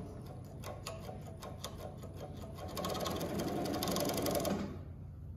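JUKI MS-1190 double-needle chain stitch industrial sewing machine stitching. It ticks slowly at first, then speeds up to a faster, louder run about two and a half seconds in, and stops shortly before the end.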